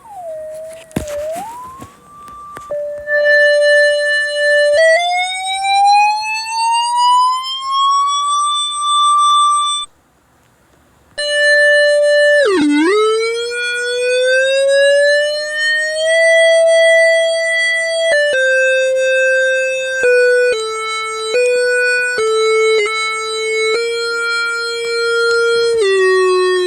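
Electronic keyboard tone pitch-bent to imitate a tornado warning siren: a held note glides slowly upward over several seconds, cuts off briefly, then swoops down sharply and winds back up. In the second half it jumps back and forth between a few close notes.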